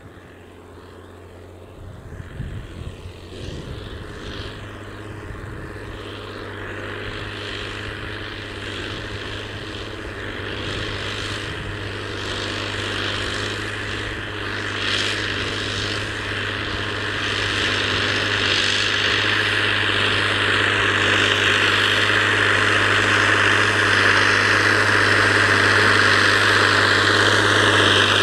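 Massey Ferguson 6480 tractor's six-cylinder diesel engine working under load as it pulls a subsoiler through the ground. It is a steady drone that grows louder throughout as the tractor approaches.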